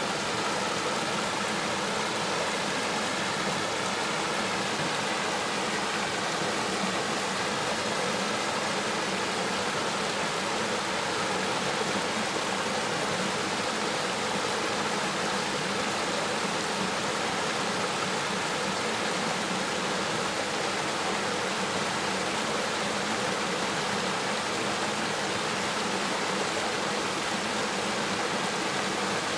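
River water flowing steadily over rocks, an even rushing noise that doesn't change.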